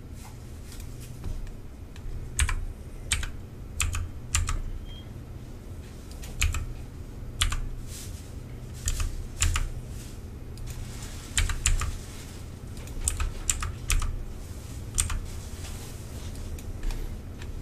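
Computer keyboard keys clicking in scattered, irregular presses, some in quick little runs, over a low steady hum.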